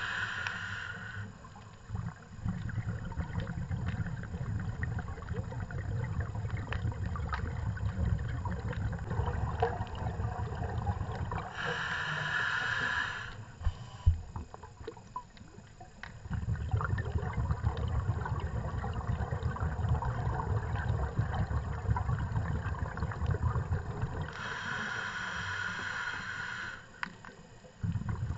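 Scuba diver breathing through a regulator, heard underwater: three short hissing inhalations about twelve seconds apart, each followed by several seconds of rumbling, gurgling exhaled bubbles.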